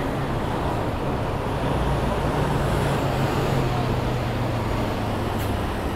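City street traffic: steady road noise, with a large vehicle's engine droning close by. The drone grows louder a couple of seconds in and eases off near the end.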